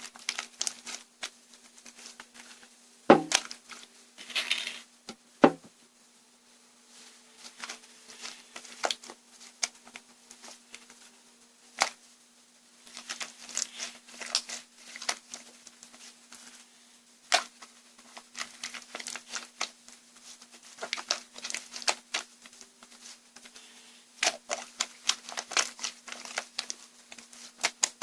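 Handling noises: rustling and crinkling with many scattered clicks and taps, two louder knocks about three and five seconds in, over a faint steady hum.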